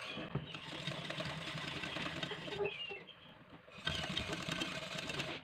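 A utensil stirring and scraping thickening chocolate glaze around an aluminium pot, a quick rhythmic scraping that drops away briefly just past the middle and then resumes. The stirring keeps the thickening glaze from catching on the bottom of the pot.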